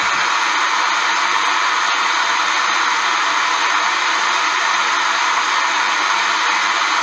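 Portable radio giving out a steady static hiss, with no station or voice coming through.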